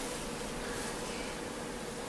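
Steady room tone: an even hiss with a faint, constant hum, and no distinct events.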